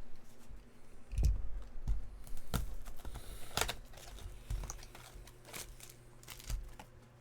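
Trading card boxes and packs being handled on a table: a series of sharp clicks and dull knocks, with a brief noisy scrape about three and a half seconds in.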